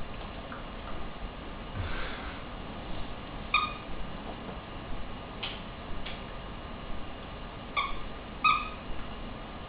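A wire fox terrier at play with a plush toy rat: three short, high squeaks, one a few seconds in and two close together near the end, with a couple of light knocks in between.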